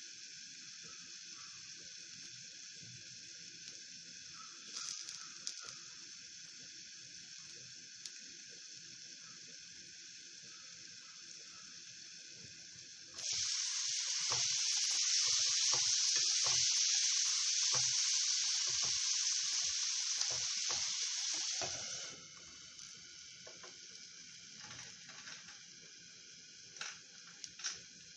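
Ridge gourd and potato pieces cooking in a covered kadai with a steady soft sizzle. About thirteen seconds in the lid is lifted and the sizzle gets much louder while the vegetables are stirred, then drops back about nine seconds later when the lid goes back on.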